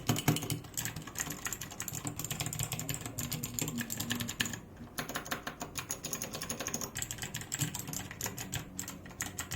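Typing sound test on an RK61 60% mechanical keyboard with clicky blue switches and double-shot PBT pudding keycaps: a fast, continuous run of key clicks, with a brief pause about five seconds in.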